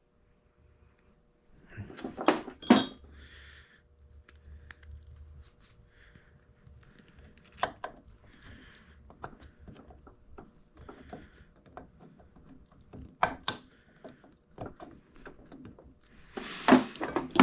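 Small metallic clicks and clinks of a steel snap ring being fitted over a bearing in a scooter engine case: a few sharp clicks spread out, with quieter handling noise between them.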